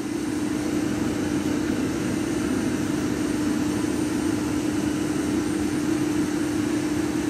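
Hamworthy Wessex Modumax Mk3 boiler module's combustion fan running, a steady drone with a constant hum.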